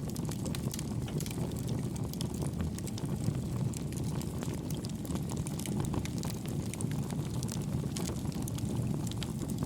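Homemade wood gas stove made from two pail cans, burning with a steady low rumble of flame and many small crackles from the burning wood.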